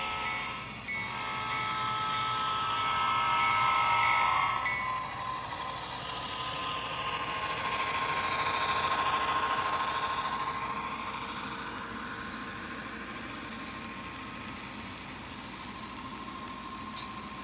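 HO scale Western Maryland diesel train running past close by. A model locomotive's multi-tone horn sounds for the first few seconds and cuts off sharply. Then the rushing rumble of the locomotives and freight cars swells as they pass, loudest about nine seconds in, and fades.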